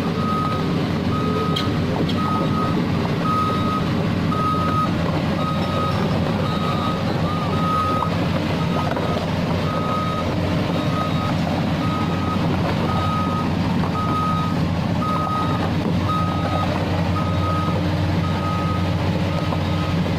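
JCB excavator engine running steadily while its travel alarm beeps a single high tone about once a second as the machine moves.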